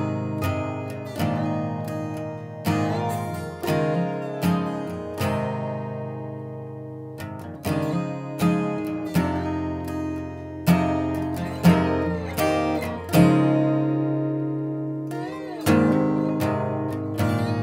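Background music of guitar chords, each struck and left to ring out.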